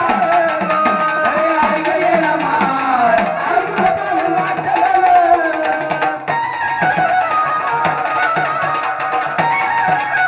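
Gondhal folk music: a sambal drum playing a steady rhythm under a wavering melody line, with a short break in the pattern about six seconds in.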